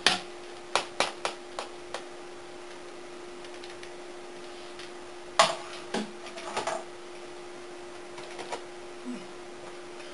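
A hand clicking and knocking on a laptop's plastic casing and keys: a quick run of about five sharp clicks at the start, a louder knock about five and a half seconds in, a few more clicks just after, then a couple of faint ones, over a steady hum.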